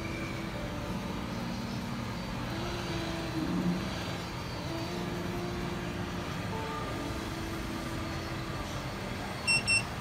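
Hot air rework gun blowing steadily over a laptop motherboard, a continuous rushing hiss. Two short high electronic beeps sound near the end.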